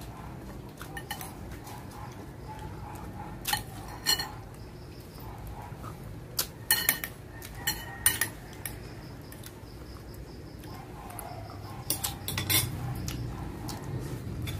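Eating utensils clinking against a plate during a meal: a few sharp clinks in clusters about four seconds in, around seven to eight seconds, and again near twelve seconds.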